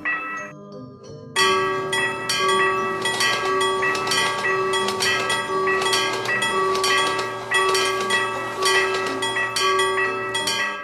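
Railroad crossing warning bell (fumikiri alarm) clanging in a fast, even repeat. It starts about a second and a half in.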